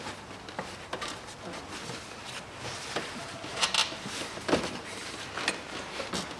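Hands fitting a rubber air intake duct onto an engine's throttle body: rustling and rubbing of rubber and plastic, with irregular sharp clicks and knocks, the loudest a little past the middle.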